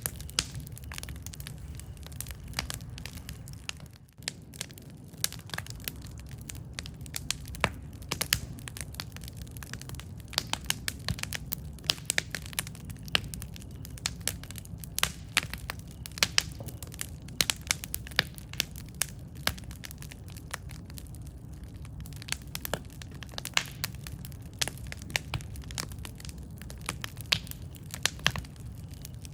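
Wood campfire burning, crackling with frequent sharp pops and snaps over a low steady rumble.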